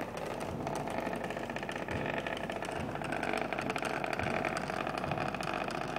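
Subwoofer playing a rap song loud, heard as a steady deep bass rumble with a buzzing rattle from picture frames shaking on the wall.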